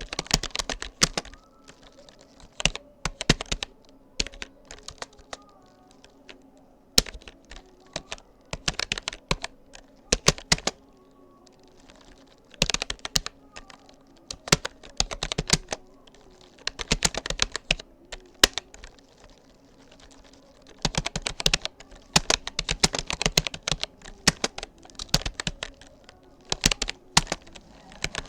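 Typing on a Rapoo computer keyboard: quick runs of key clicks broken by short pauses of a second or two.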